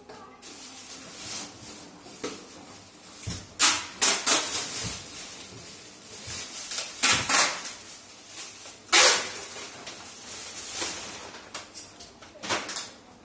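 Plastic bags rustling and crinkling as clothes and small items are rummaged through and handled, in irregular bursts, the loudest a little before four, about seven and about nine seconds in.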